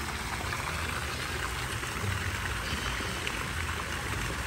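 Shallow pool water sloshing and trickling as a plastic toy water gun is dipped in and filled.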